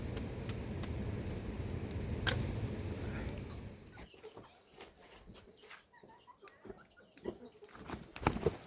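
Steady low rumbling noise that drops away about four seconds in, leaving quieter scattered short clucking calls, typical of chickens.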